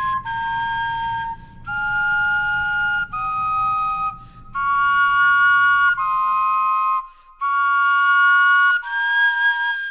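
Carved-vegetable wind instruments play a slow passage of about eight held, whistly notes in two parts, each about a second long, with short breaks between them. A faint low hum underneath stops about seven seconds in.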